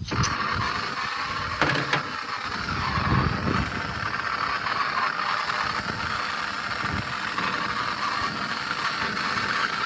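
Handheld gas torch burning with a steady hiss, starting abruptly as it is lit, with a couple of brief knocks about two seconds in.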